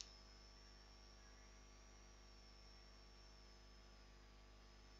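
Near silence: room tone with a faint steady mains hum and a thin high whine.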